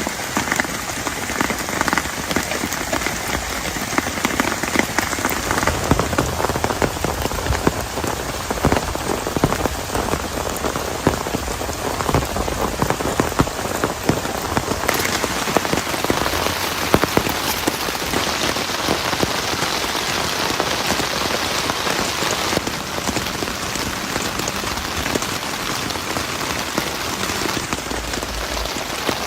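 Heavy rain falling steadily, a dense patter of drops striking a close surface, with a shift in tone about halfway through.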